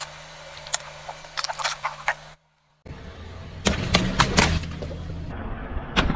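A car tyre rolls over a row of toothpaste tubes, with a few sharp cracks as the tubes split. After a short break, the tyre rolls onto water balloons: a run of sharp pops and splashing as they burst, and another pop near the end.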